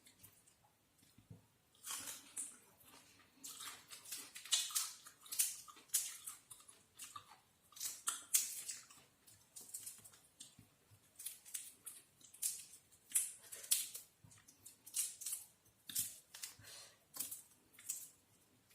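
Close-up eating sounds: irregular crunching and crackling of food being bitten and chewed, in quick clusters throughout.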